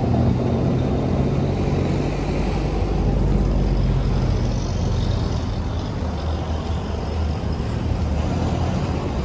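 Road traffic: a steady low rumble of trucks and cars passing on a street.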